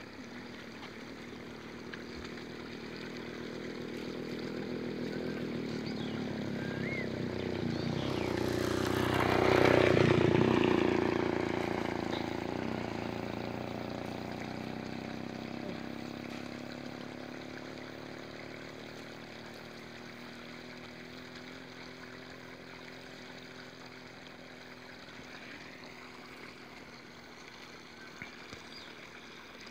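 A motor vehicle's engine passing by: it grows louder for several seconds, is loudest about ten seconds in, then slowly fades away.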